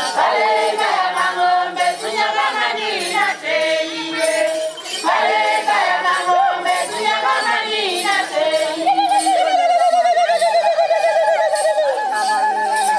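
A group of voices singing a traditional Sukuma song with hand clapping. From about nine seconds in, a long wavering note is held over the singing.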